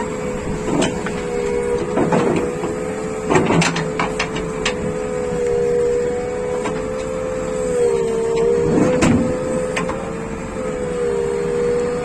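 JCB 3DX backhoe loader working, its machinery giving a steady whine that sags briefly in pitch about eight seconds in, with scattered sharp knocks and clanks.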